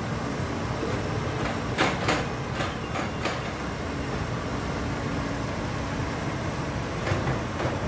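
Heavy diesel machinery, an excavator or dump truck, running with a steady rumble. A cluster of sharp knocks comes about two to three seconds in, and another near the end.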